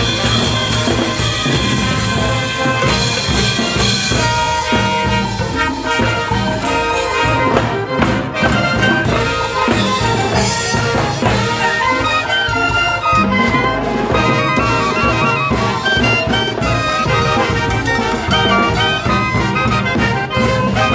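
Peruvian brass band playing a festive tune with a steady beat: trumpets, saxophones, clarinets and tubas over drums and hand percussion.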